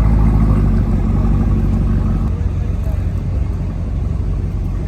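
A car engine running with a deep, steady low note that changes about two seconds in.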